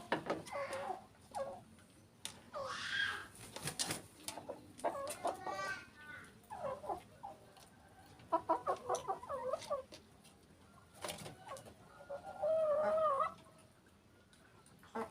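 Domestic chickens clucking: a run of short calls, then one longer wavering call about twelve seconds in, with sharp clicks scattered between the calls.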